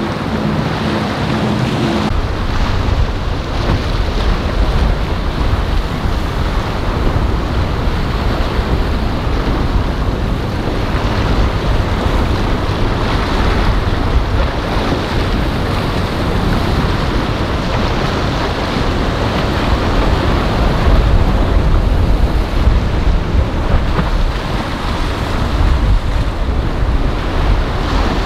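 Steady wind buffeting the microphone over crashing surf and choppy water, with a powerboat running at speed and its hull throwing spray. A faint engine hum is heard in the first couple of seconds.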